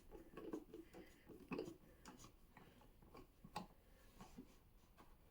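Faint, scattered clicks and light taps of a screwdriver and hard plastic parts as the Torx screws come out of a booster seat's plastic armrest.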